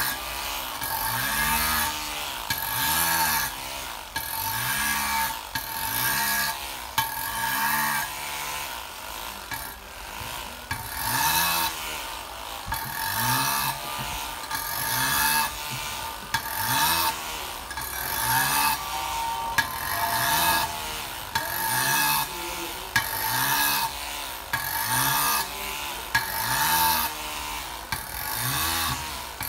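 Flexible-shaft rotary engraving tool cutting decorative lines into the black-finished metal body of a darbuka, a steady high scraping grind. Its pitch rises and falls in repeated strokes about once a second as the bit is worked along the pattern.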